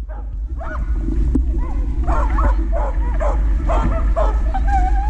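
Dog in a pulling harness giving excited high yips and barks about twice a second, with a longer drawn-out whine near the end: eager to be let go at the start line.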